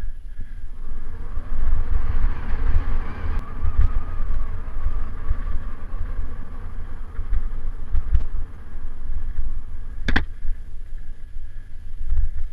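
Mountain bike riding fast over dirt singletrack, heard through a bike- or helmet-mounted action camera: wind buffeting the microphone with tyre and bike rattle underneath. A single sharp knock about ten seconds in, as from the bike hitting a bump.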